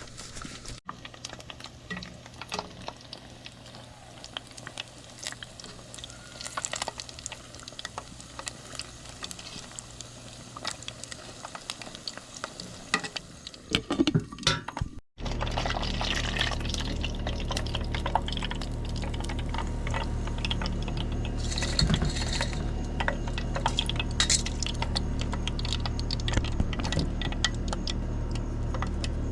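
Crappie frying in hot peanut oil: bubbling and crackling, with clinks of pans and utensils. After a cut about halfway it grows louder, with a steady low hum under frequent crackles.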